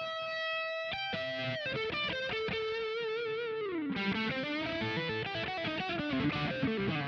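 Background music: an instrumental opening led by a guitar-like lead, one held note and then a wavering melody, with fuller backing coming in about four seconds in.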